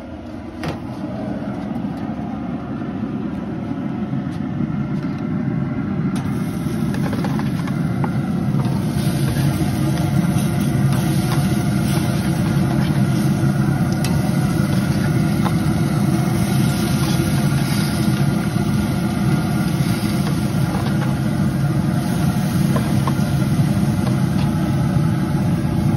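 Rec Tec RT-590 pellet smoker running hot at about 400 degrees, its fan giving a steady low rush, as glazed pineapple slices sizzle on the grate. It grows louder over the first several seconds, and a high sizzling hiss joins in about six seconds in.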